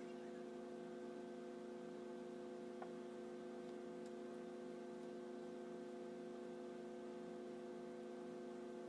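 Faint, steady electrical hum made of several steady tones, with one faint click about three seconds in.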